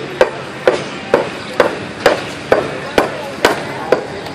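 Hammer striking a chisel into a wooden bowl blank, carving out the hollow: sharp, evenly spaced blows, about two a second.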